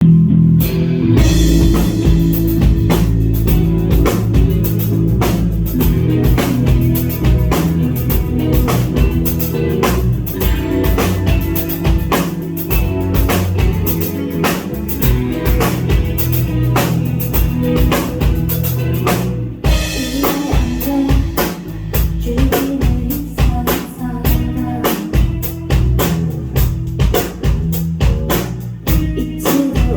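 Live band playing a song on electric bass, electric guitar and drum kit. About two-thirds of the way in the music breaks off for an instant, then the bass and drums come back in shorter, choppier strokes.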